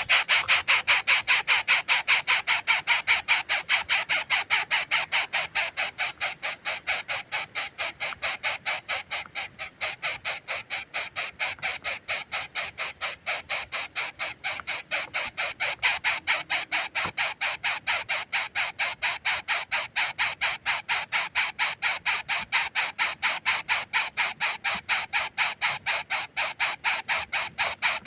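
A baby bird begging, giving short high calls over and over at about four a second without a break: a hungry fledgling calling for its parent to feed it.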